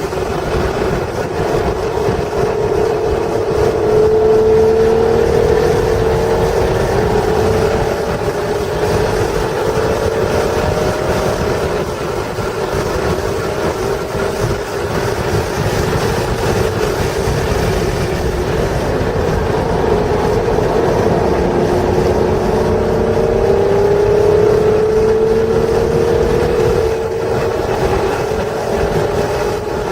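1996 Acura NSX's stock 3.0-litre V6 pulling hard on a race track, its note rising slowly about three seconds in and again about twenty seconds in, over steady wind and road noise.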